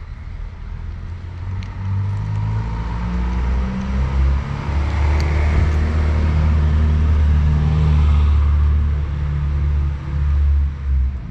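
A motor vehicle's engine running close by with a low rumble that grows louder about two seconds in, stays loud, and eases off near the end.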